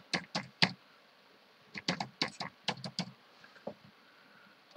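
Computer keyboard being typed on: a quick burst of about five keystrokes at the start, then a faster run of about a dozen keystrokes from about two to three seconds in.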